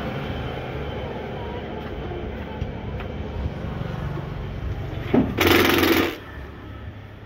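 Cordless impact driver running a screw out of a welding machine's sheet-metal cover in one short burst of under a second, a little past five seconds in, over steady background noise.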